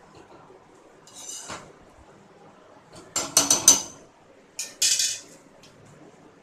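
Steel spoons clinking against a metal kadai of thick rava upma: short, ringing knocks in three groups, the busiest about three seconds in.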